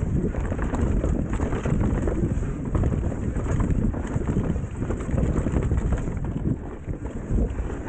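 Wind buffeting the microphone as a mountain bike rides fast along a dirt trail, with the tyres rolling on dirt and the bike rattling and knocking over bumps.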